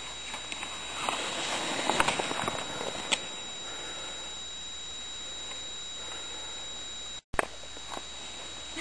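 Skis sliding over snow: a few scrapes and clicks in the first three seconds, then a steady, even hiss.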